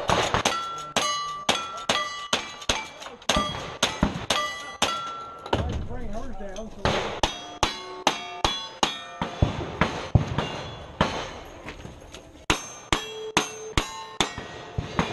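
A rapid string of gunshots, about two a second, each followed by the clang of a steel target ringing: rifle shots first, then revolver shots after a pause, with a second pause before the last run of shots near the end.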